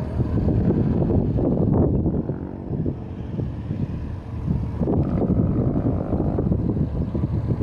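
GT22 diesel-electric locomotive pulling away at full power, its engine a low, uneven rumble mixed with wind buffeting the microphone.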